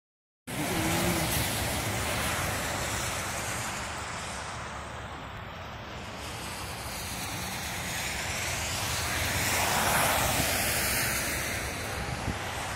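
Steady rushing noise of wind and road traffic. It swells to a peak about ten seconds in as a vehicle goes by, then eases off.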